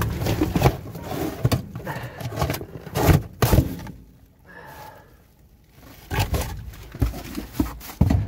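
Rummaging through a dumpster: cardboard produce boxes and plastic trash bags being shifted, with scraping, rustling and irregular knocks. The loudest knocks come about three seconds in, and it eases off for a couple of seconds in the middle.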